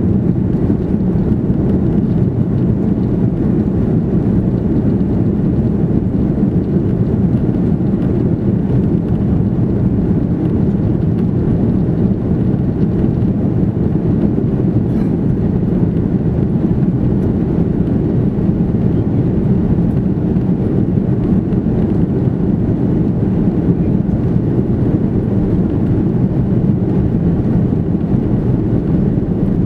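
Steady cabin noise of an Airbus A330-300 airliner, heard from a rear seat: a deep, even rumble of engines and airflow that does not change.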